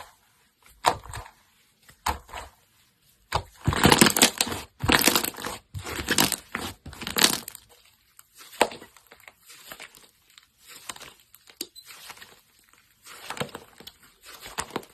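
Slime being pressed and squeezed by hand, giving irregular crackling and crunching sounds. They are densest a few seconds in and sparser afterwards.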